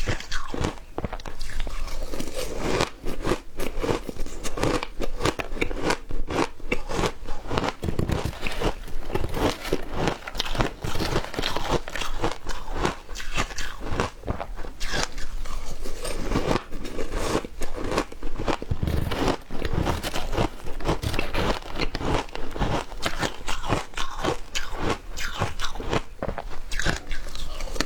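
A person biting and chewing frozen matcha ice, a close, rapid run of crunches and cracks that goes on without a break.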